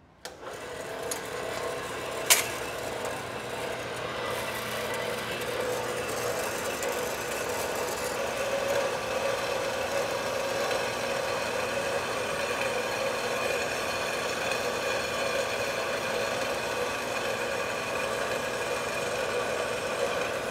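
Metal-cutting bandsaw, a red horizontal/vertical saw used upright, starting up and running steadily as its blade cuts through aluminum plate, with one sharp click about two seconds in.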